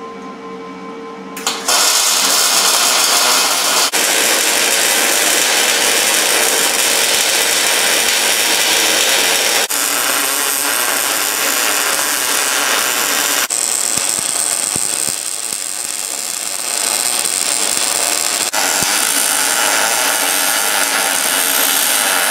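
After a second and a half of music, a MIG welder's arc crackles and hisses steadily, welding a steel truss to steel axle tubes, in several long passes broken by brief gaps.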